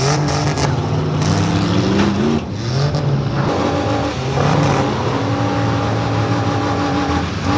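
Demolition derby cars' engines revving and running, their pitch rising and falling, then holding steadier near the end.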